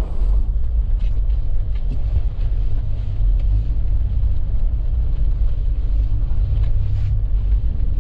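Car running with a steady low rumble, with faint scattered ticks over it.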